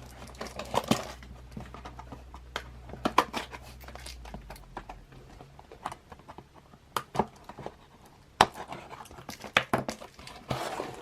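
Hands opening a well-wrapped parcel: packaging crinkling, rustling and tearing, with scattered sharp clicks and snaps. A low background hum stops about five seconds in.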